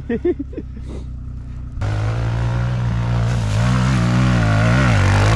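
Kawasaki KLX pit bike's small single-cylinder four-stroke engine, running low and then revved hard from about two seconds in as the bike climbs a steep dirt slope. The pitch wavers up and down with the throttle.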